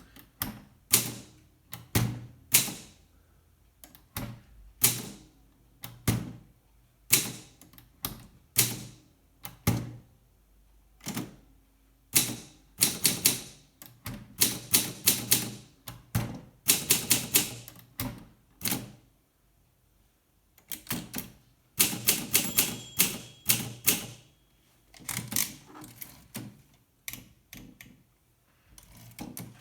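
Olympia SM2 de Luxe manual portable typewriter being typed on: keys striking in irregular runs, some quick bursts of strokes, separated by short pauses.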